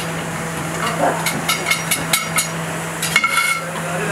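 Metal clinking and knocking of cooking pots and skewers being handled on a charcoal grill: a quick run of sharp, ringing clinks, then one more clink near the end, over a steady low hum.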